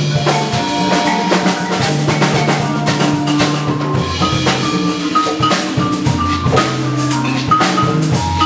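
Percussion ensemble playing a jazz tune: marimba and vibraphone struck with mallets in quick, dense strokes over a held, shifting bass line.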